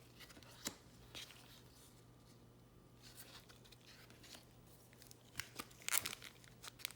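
Trading card pack wrapper being crinkled and torn open, in scattered faint rustles and clicks that grow louder near the end, over a faint steady low hum.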